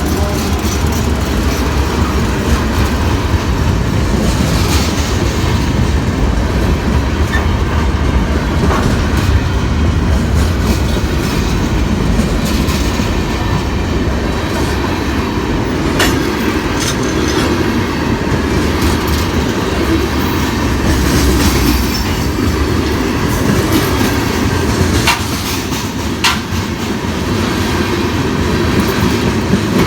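Freight cars of a New York & Atlantic Railway train rolling steadily past, a loud continuous rumble with wheels clacking over rail joints and a few sharp clicks.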